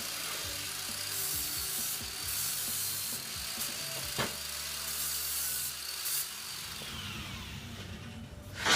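Angle grinder with a flap disc grinding the end of steel square tubing to clean it before welding, with a steady high whine. Over the last couple of seconds it is switched off and winds down, its whine falling in pitch.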